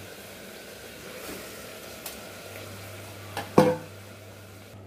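Steady sizzle of dal, rice and spices frying in ghee in an open pressure cooker, with a sharp clink about three and a half seconds in.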